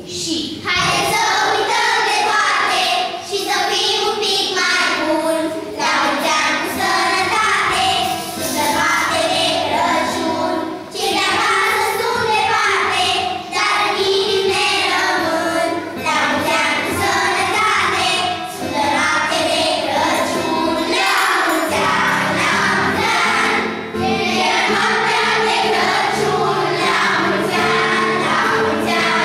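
A children's choir singing together, starting about half a second in.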